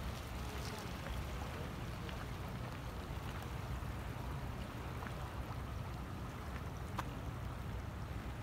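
Steady low rumble of wind on the microphone over the rushing water of the flood-swollen Rhine.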